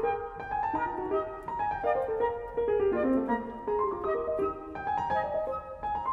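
Background piano music in a classical style: a continuous run of single notes and chords.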